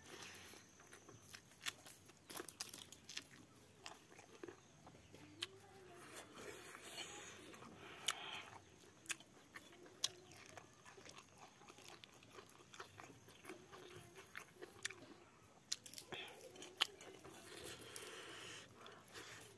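Close-up chewing and lip-smacking of a mouthful of rice and boiled pork, with irregular sharp clicks and crunches, and fingers scraping food together in a steel plate.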